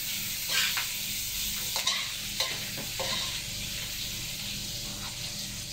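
Food sizzling in a hot wok while being stirred with a metal spoon, the spoon scraping and clinking against the pan a few times in the first three seconds.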